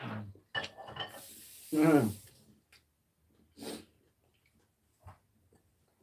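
A man eating a mouthful of stir-fried squid: a loud breathy, wordless vocal sound about two seconds in, with short mouth and chewing noises before and after.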